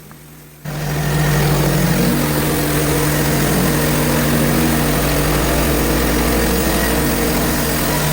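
Portable bandsaw mill's gas engine running steadily under load as the mill saws a hard maple log. It starts abruptly under a second in, then holds at an even pitch and level.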